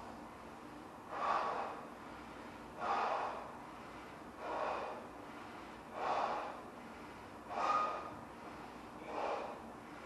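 A man blowing up a large latex balloon by mouth: six rushing breaths, one about every second and a half.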